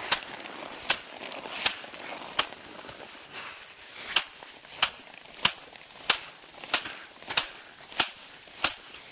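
Sheaves of rice being beaten by hand against stones to thresh out the grain: a sharp slap roughly every two-thirds of a second, with a short pause about three seconds in.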